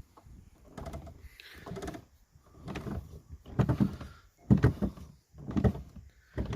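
Boat steering being worked back and forth: the rotary helm and push-pull cable swinging the outboard, heard as a run of creaking, scraping strokes about one a second.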